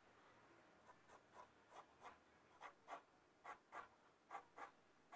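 Sharpened graphite pencil scratching on drawing paper in short repeated strokes, about three a second, faint at first and stronger from about halfway, as straight cube edges are drawn over.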